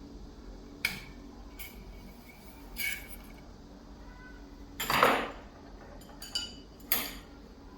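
Metal picking tool working inside a Kaiba 70040 disc lock: about six separate sharp metallic clicks and clinks, some with a brief ring. The loudest and longest comes about five seconds in.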